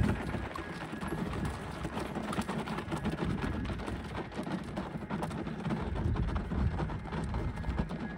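A ridden palomino horse's hooves falling on a gravel path at a walk, a steady run of hoofbeats.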